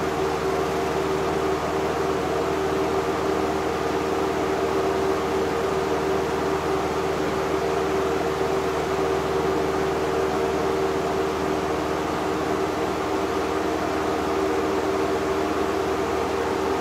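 1987 Robeson 20-inch reversible box fan (model 2385) running steadily: a rush of air from the blades with a steady hum underneath.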